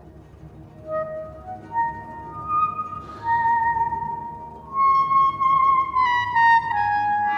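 Background music: a slow, singing solo clarinet melody over a soft, low sustained accompaniment. The melody climbs note by note, swells on a held high note about five seconds in, then steps back down.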